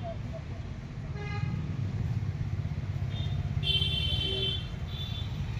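Street traffic: a steady low engine rumble with several vehicle horn toots over it, the longest and loudest lasting nearly a second at about four seconds in.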